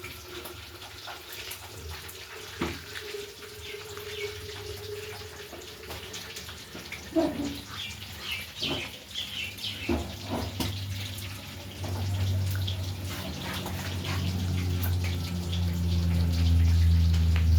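Water running, with scattered clinks and knocks; a low steady sound grows louder about twelve seconds in.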